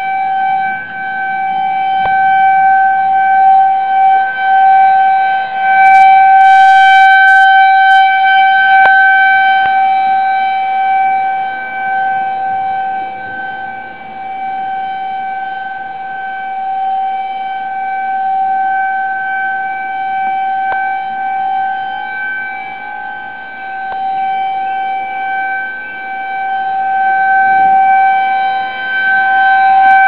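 Outdoor tornado warning siren sounding one steady, level-pitched tone, its loudness slowly swelling and fading.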